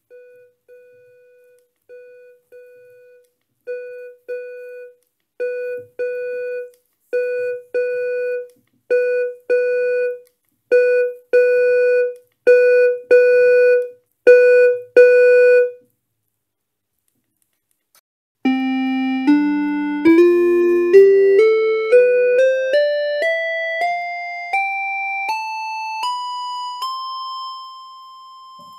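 An electronic keyboard sounding the same single note over and over, roughly once a second, each note louder than the one before. After a short pause it plays a rising scale one note at a time, climbing about two octaves and holding the last note.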